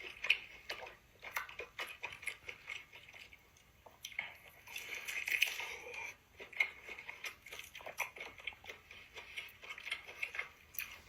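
Close-miked eating: a person chewing and biting into food, with many short crunching clicks, busiest about four to six seconds in.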